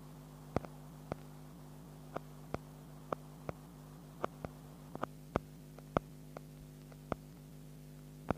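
A steady low hum with sharp clicks laid over it, coming irregularly about two a second.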